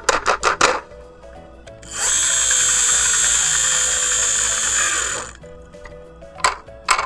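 A few sharp clicks, then a loud, steady, drill-like whir from about two seconds in to about five, over background music.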